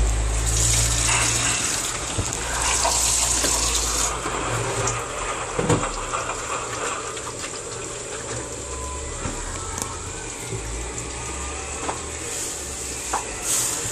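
Washing machine running with water gushing, over a low hum that eases after the first few seconds, with a few light knocks.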